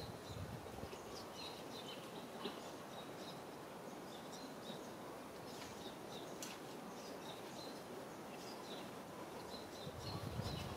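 Small birds chirping faintly and repeatedly in the background over a steady outdoor hiss, with a low rumble rising near the end.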